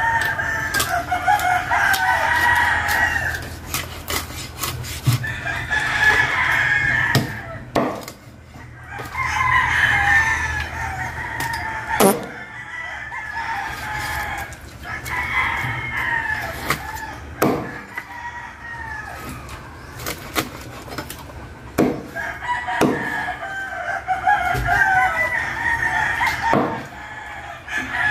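Chickens calling and crowing in repeated bouts of two or three seconds each, along with the sharp knocks of a cleaver chopping through fish onto a wooden chopping board every few seconds.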